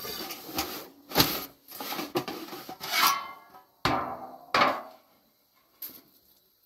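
A thin wooden rolling pin knocks and rubs on a round wooden dough board, followed by a few clanks and scrapes of large metal trays and pans. The handling stops about five seconds in.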